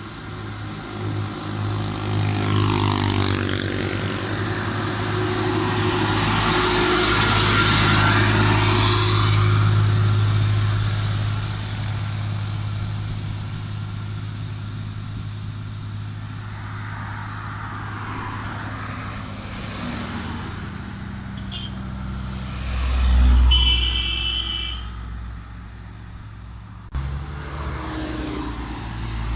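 A loaded truck's diesel engine labours up a grade and passes close by. Its steady low hum swells to its loudest about a third of the way in, then fades as it pulls away. About three-quarters of the way through comes a short, loud burst with a high ringing tone.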